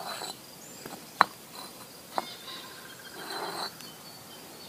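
Concrete blocks being handled and set down, with two sharp clacks about a second and two seconds in and a brief scrape near the end. Crickets chirp steadily in the background.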